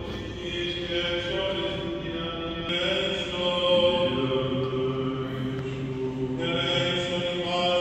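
Greek Orthodox Byzantine chant sung by male voices in long held notes, changing abruptly twice.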